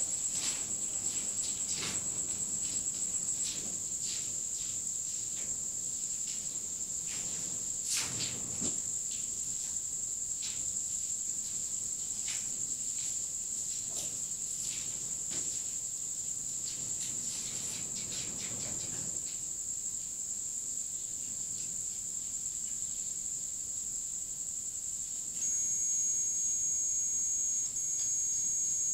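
Crickets chirping in a steady high-pitched trill, with scattered faint knocks and rustles over the first two-thirds. About 25 seconds in, a steady electronic tone at several pitches starts, breaks briefly and carries on: the spirit box reacting.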